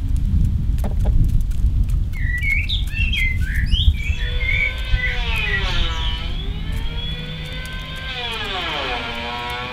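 A low rumbling noise, then a few short chirping bird calls about two to four seconds in. After that comes a long, siren-like wailing tone that slowly falls and rises in pitch twice.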